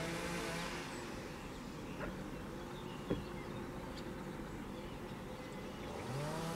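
A steady engine hum with a buzzing tone. It fades somewhat after the first second and swells back, rising slightly in pitch, just before the end. A single sharp click comes about three seconds in.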